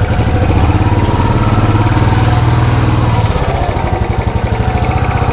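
Royal Enfield Bullet single-cylinder engine running at idle with an even, regular beat. Its deep low part eases about three seconds in.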